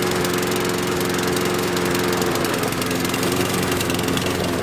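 Gasoline walk-behind lawn mower engine running steadily while the mower is pushed across grass.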